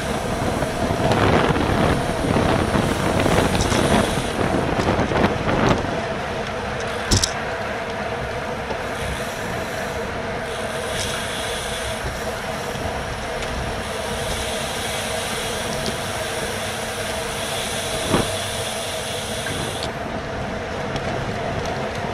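Wind rush and tyre-on-road noise on a bicycle-mounted GoPro at racing speed, with a steady hum underneath. It is louder for the first six seconds or so, and there are two sharp knocks, about seven and eighteen seconds in.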